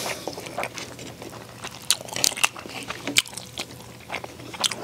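Close-miked eating sounds: a metal spoon scraping and clicking against the toasted shell of a soy-sauce-marinated crab as rice and roe are dug out, with chewing in between. A series of sharp, short clicks and scrapes at irregular intervals.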